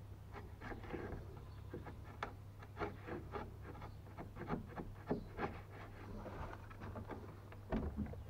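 Irregular light wooden clicks and scrapes from hand work on a clamped wooden stringer being notched, over a steady low hum.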